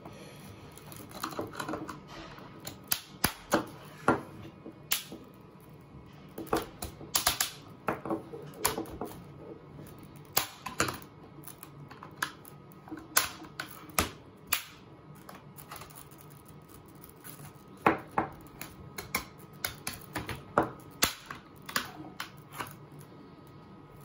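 A flathead screwdriver prying apart the sealed halves of a hard plastic CGC comic slab: irregular sharp clicks, snaps and cracks as the plastic seam is forced open, with a lull of about two seconds a little past the middle.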